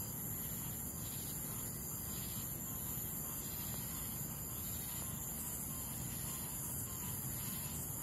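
Night insects, crickets among them, trilling in a steady high-pitched chorus that does not change, over a low steady rumble.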